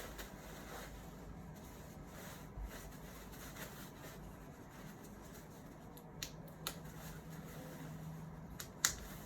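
Quiet handling of a puffer jacket, with a few short sharp clicks in the second half, the strongest near the end.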